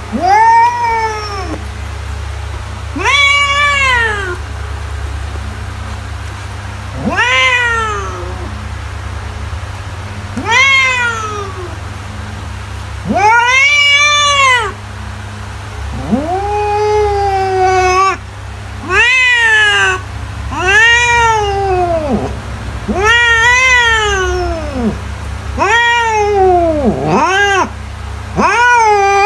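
A cat meowing over and over: about a dozen separate meows, each rising and then falling in pitch and lasting a second or two, coming closer together toward the end, over a steady low hum.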